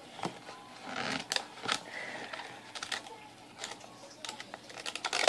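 Thin clear plastic food container handled and turned in the hands: scattered light clicks and crinkles of the plastic, with a quick run of clicks near the end.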